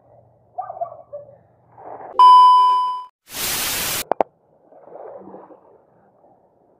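A loud beep, about a second long and fading out, followed by a short burst of steady hiss that cuts off abruptly and a click, with faint handling noises before and after.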